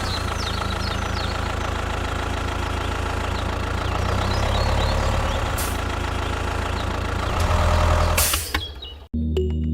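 An engine running steadily, then cutting off abruptly about nine seconds in.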